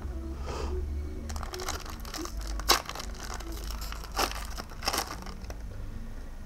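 Foil wrapper of a Pokémon booster pack crinkling and tearing as it is handled and opened, with three sharp crackles in the middle, the first the loudest.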